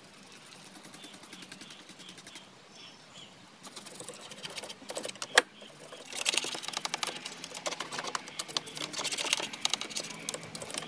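Old toothbrush scrubbing the plastic and metal parts of a scooter, a fast scratchy rhythm that starts about four seconds in and gets louder after about six seconds. One sharp tap, the loudest sound, comes just before the scrubbing picks up.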